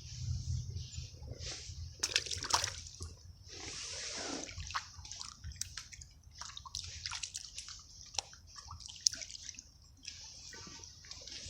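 Water splashing and sloshing in irregular bursts, with scattered sharp clicks, as a hooked crucian carp thrashes at the surface and is landed.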